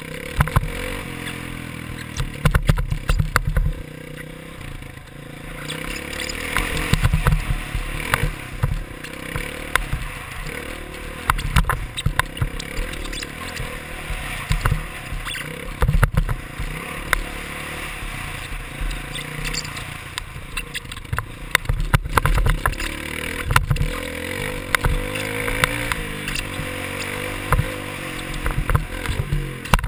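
Dirt bike engine revving up and down as it is ridden over a motocross track, with wind rumbling on a helmet-mounted microphone and frequent sharp knocks from the bumps.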